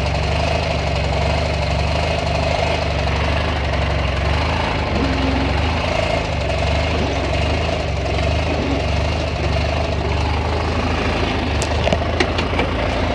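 Murray riding lawn mower's engine running steadily at an even speed, with a few sharp clicks near the end.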